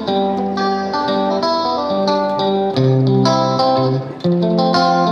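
Background music: a plucked guitar tune, a run of picked notes with brief pauses between phrases.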